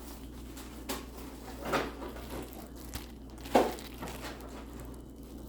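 Handling of a small metal Squishmallow tin as it is opened: a few scattered knocks and light rustles, the loudest about three and a half seconds in.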